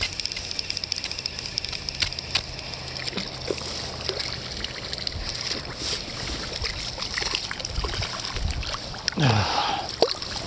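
Flowing river water, a steady rushing hiss, with sloshing and small splashes close by. Scattered sharp clicks run through it, and a short falling sound comes about nine seconds in.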